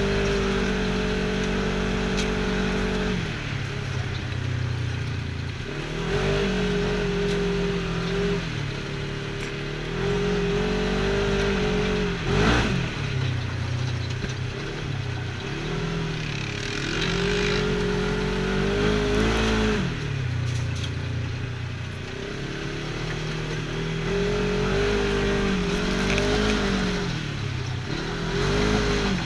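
Polaris RZR side-by-side engine revving up and easing off again and again while driving over a rough dirt trail, with a single sharp knock about twelve seconds in.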